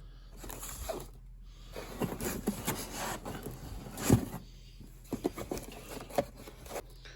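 Cardboard toy boxes and packaging being handled: scraping and rustling with scattered light knocks, and one sharper knock about four seconds in.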